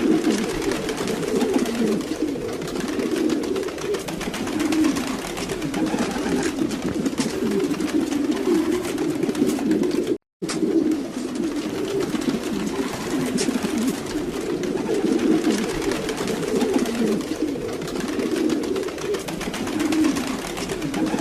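A flock of domestic pigeons cooing, many low coos overlapping into a continuous chorus. The sound cuts out for a moment about halfway through.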